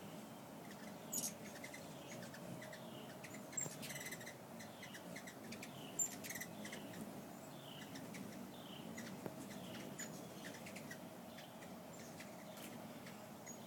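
Hummingbirds giving a string of short, high chips, many falling in pitch, about one or two a second. Three sharp clicks cut in about a second, three and a half seconds and six seconds in.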